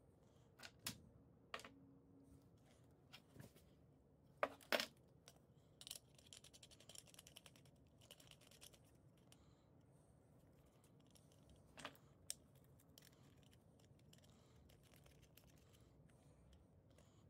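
Quiet handling of small metal air-line fittings and pressure gauges: scattered sharp clicks and knocks of metal parts, the loudest pair about four and a half seconds in. A stretch of light rustling runs from about six to eight seconds in.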